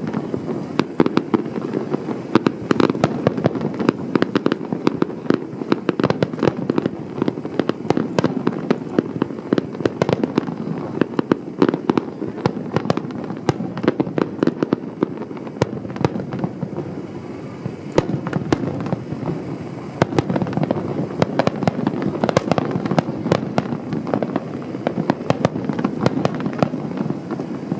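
Aerial fireworks going off in a dense, continuous barrage of rapid bangs and crackles over a steady rumble.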